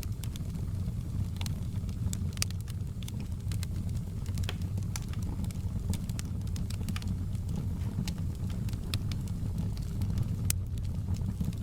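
Wood fire burning in a fireplace: a steady low rumble of flames with irregular sharp crackles and pops, one louder pop about ten and a half seconds in.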